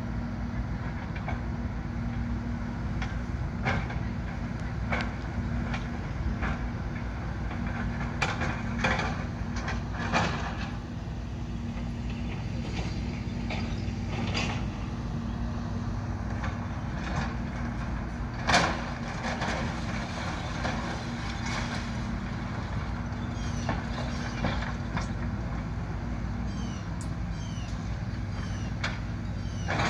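Kobelco excavator's diesel engine running steadily while it demolishes a building, with scattered clanks and crashes of debris being broken and dropped. The loudest crash comes about two-thirds of the way through.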